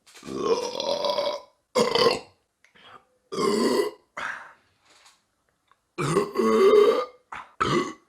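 A run of loud burps from men, one after another with short silent gaps between them, about two of them long and drawn out and the rest short.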